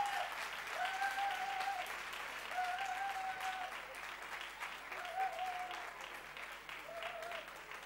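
Theatre audience applauding at a curtain call, the clapping slowly dying down, with a voice calling out four times over it, each call held for up to about a second.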